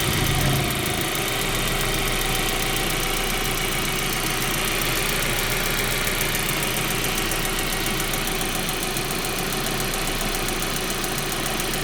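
A 1.8T turbocharged four-cylinder engine settles from a rev back to a steady idle, with a fast, even ticking running over the idle.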